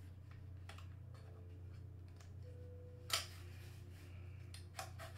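Small clicks and taps of an airsoft TAR-21 rifle's parts being handled during disassembly, with one sharp click about three seconds in and a few lighter clicks near the end.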